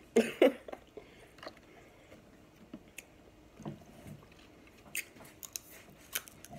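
Close-up eating sounds of snow crab legs being sucked and chewed: scattered small mouth clicks and smacks, with two short, louder sounds right at the start.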